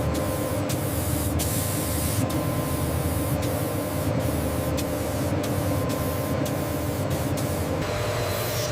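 Steady spraying hiss over a low machine hum, with brief dips in the hiss and a change in the sound near the end.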